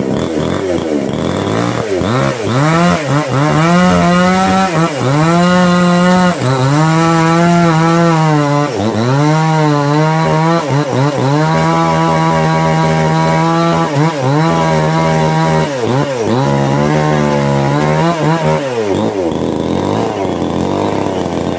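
Small engine, long out of use, being test-run: revved up and down several times, held at high revs for a few seconds at a stretch, then dropping back to a lower idle near the end.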